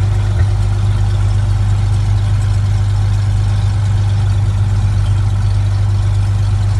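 Cessna 182's six-cylinder piston engine and propeller idling after the pre-takeoff run-up, heard from inside the cockpit as a steady, loud low drone.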